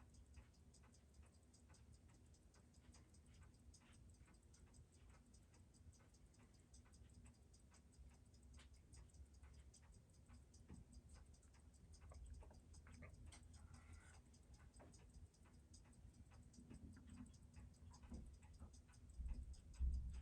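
Faint, steady, evenly spaced ticking of a Seiko 6139 automatic chronograph movement running on a timegrapher, its balance beating at 21,600 beats per hour, about six ticks a second. The movement is freshly serviced and running well.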